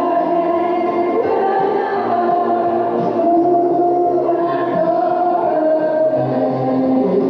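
Music with a group of voices singing long held notes.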